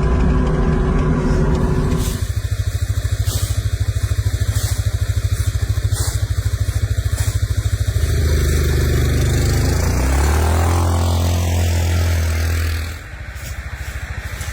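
Off-road vehicle engine running steadily with an even pulsing beat. About eight seconds in it changes pitch, then winds down and drops to a quieter idle near the end.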